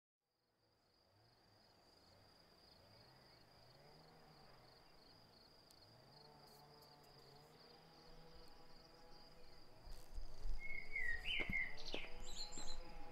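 Outdoor ambience fading in: a steady, high, pulsing insect trill, with a few short bird chirps and low thumps from about ten seconds in.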